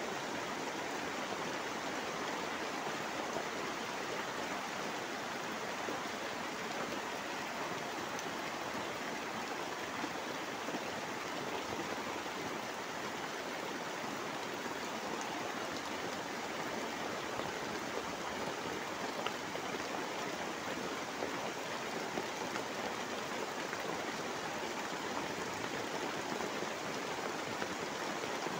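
Steady rushing of running water, an even hiss with no breaks.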